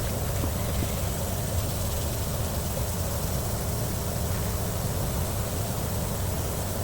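Steady, even machine-like rushing noise with a low hum underneath, unchanging throughout.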